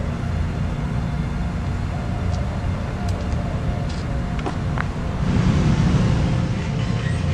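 Outdoor street ambience: a steady low rumble of road traffic with a few faint clicks, getting louder about five seconds in.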